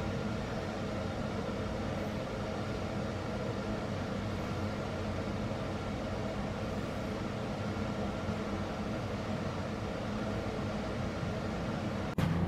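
Steady background hum and hiss with a few faint constant tones, unchanging throughout: outdoor ambience with no one speaking. It cuts off abruptly near the end.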